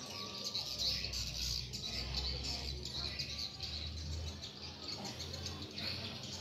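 Small birds chirping and twittering in the background, with a low rumble underneath for much of the time.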